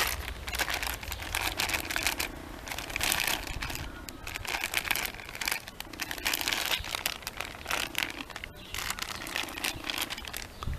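Clear plastic sleeve crinkling and rustling in irregular bursts as it is handled and wrapped around a long ratchet wrench.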